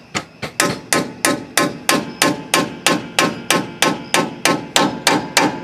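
Hammer tapping a metal seal driver, driving a new rear axle seal into the axle housing: a steady run of about three sharp, ringing metal strikes a second.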